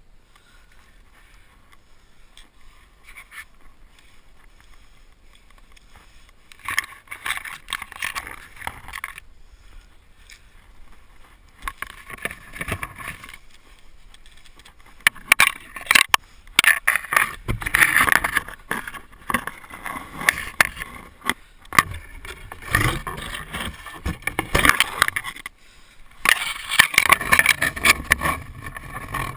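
A climber's hands and body scraping and rustling against Chinese cypress bark, branches and leaves close up, with irregular sharp knocks. Faint at first, it turns busy about a quarter of the way in and is loudest through the second half.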